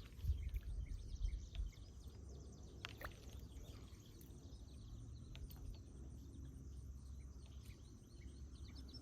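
Faint outdoor ambience: quiet insect and bird sounds, with a low rumble in the first couple of seconds and a few faint ticks.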